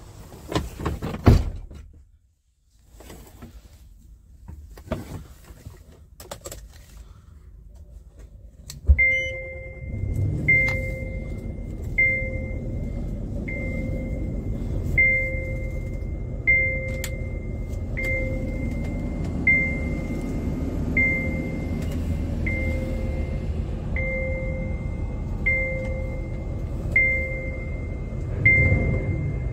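Handling clicks and a thunk, then about 9 s in the Scania R730's V8 diesel starts and settles into a steady idle. A warning chime beeps about every one and a half seconds: the low brake-pressure warning while the air system is still below pressure.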